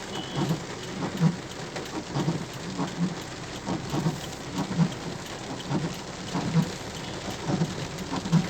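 Heavy rain falling on a car, a steady wash of rain with frequent irregular low thuds of drops striking the body.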